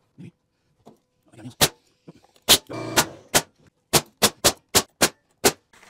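Nails being driven into 2x4 framing lumber: about ten sharp strikes starting a second and a half in, coming quicker near the end at about three to four a second.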